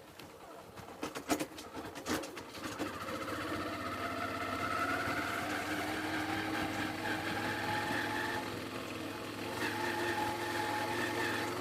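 Motorcycle engine running, after a few knocks in the first couple of seconds; its pitch rises slightly as it picks up speed, then holds steady.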